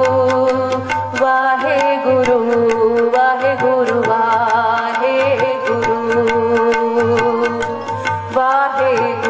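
A woman singing Gurbani kirtan into a microphone, her voice amplified, over a tabla keeping a fast, steady beat.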